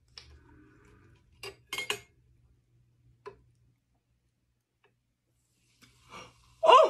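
A few sharp clicks and clinks of glass and metal as a soda bottle is handled over a drinking glass with a thin metal rod standing in it, the loudest about two seconds in. Just before the end a loud, amazed gasp of a voice.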